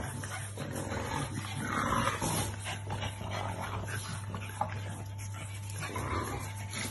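French bulldogs making short, irregular dog noises as they play-wrestle, over a steady low hum.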